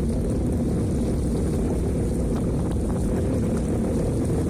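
Jet ski engine running steadily, with wind buffeting the microphone.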